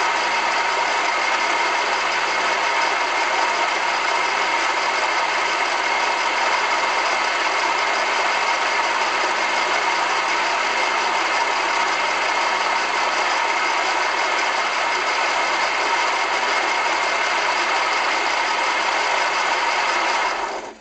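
A 2005 VW Polo 1.4 engine idling, with a steady whining tone running over the engine noise, then cutting off near the end. The noise persists after all three drive belts, their tensioners and the water pump were replaced, and the owner suspects the air-conditioning compressor.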